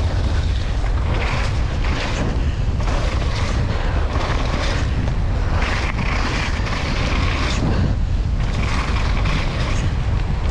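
Wind rumbling over a mountain bike rider's action camera at speed. Tyres run over rough, wet dirt and the bike rattles in irregular bursts, about one or two a second.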